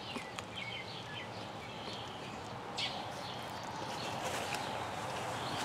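Small birds chirping now and then over steady outdoor background noise, with one short click about three seconds in.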